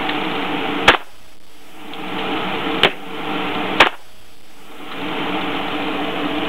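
Three gunshots, the second about two seconds after the first and the third a second later, over a steady hiss; the hiss drops out briefly after each shot.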